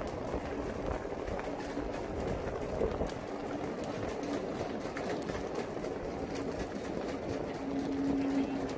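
Steady outdoor background noise, a rumbling hiss with a faint hum that comes and goes and a few light clicks.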